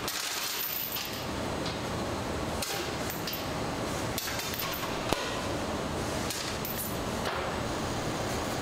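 Metal clinks and knocks of a hoist chain, hook and wire basket against a steel centrifuge drum, with one sharp clank about five seconds in as the drum's lid is swung shut. A steady din of factory machinery runs underneath.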